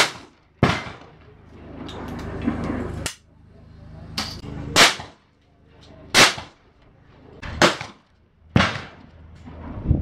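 Shotgun shots fired one after another, about seven or eight in ten seconds, each a sharp report with a short trailing echo.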